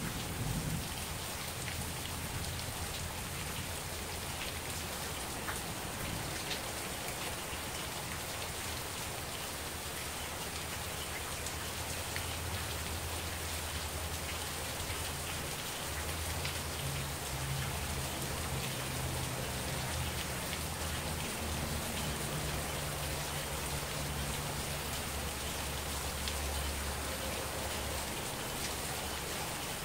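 Heavy rain falling steadily, with individual drops ticking on surfaces close by and a low rumble underneath.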